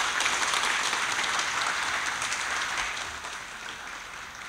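Audience applauding, the clapping thinning out after about three seconds.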